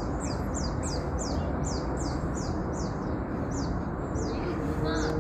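A small songbird singing a rapid series of high, falling notes, about two or three a second, which stops about three and a half seconds in, over steady outdoor background noise.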